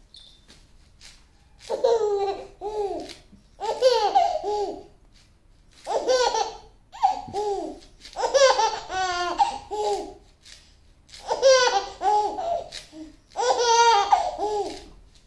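Baby laughing: about seven bouts of high-pitched laughter with brief pauses between them.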